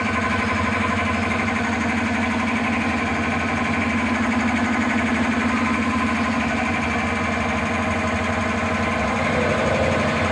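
Engine running steadily at idle with a fast, even beat.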